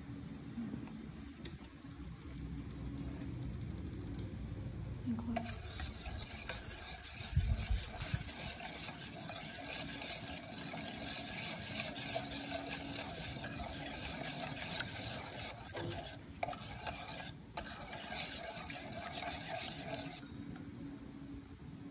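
A wire whisk stirring liquid flan custard of egg, condensed milk and whipping cream in a stainless steel bowl, its wires scraping and clicking against the metal. The whisking starts about five seconds in and stops just before the end.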